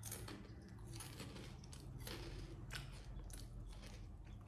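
Quiet, irregular crunching of potato chips being eaten: short, sharp crackles one after another.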